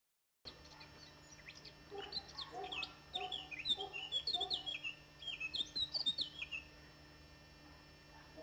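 Small birds chirping in quick, busy bursts, with lower short clucking calls of chickens among them, over a faint steady low hum. The sound starts abruptly about half a second in, and the chirping dies away about two-thirds of the way through.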